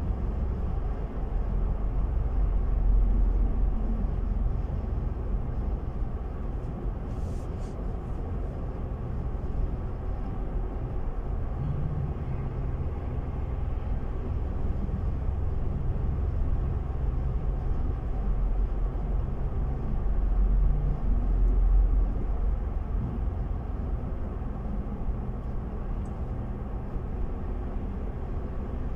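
Steady low rumble of engine and road noise inside a moving car. It swells a little about three seconds in and again near twenty-one seconds, with a brief click about seven seconds in.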